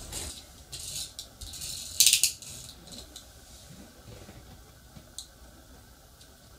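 Small hard toy parts being handled: a run of clicks and rattles in the first couple of seconds, loudest in a short burst just after two seconds, then quiet.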